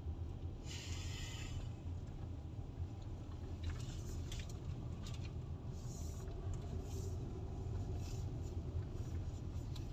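Car cabin noise while driving: a steady low rumble of engine and tyres, with a short hiss about a second in and a few faint ticks later on.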